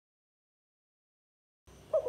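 Dead silence, then near the end the first short note of a spotted dove's coo cuts in.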